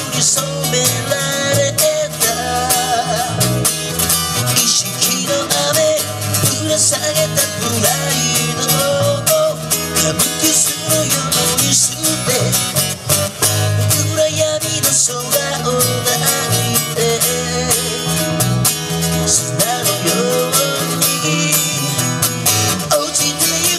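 Live duo of acoustic guitar and electric bass guitar playing a song, with a steady plucked bass line under strummed guitar and a man singing along.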